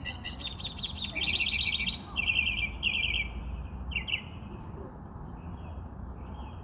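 Songbirds chirping: quick trilled phrases of rapid high notes, loudest in the first half, then shorter, softer chirps. A faint, very high tick repeats about every two-thirds of a second throughout.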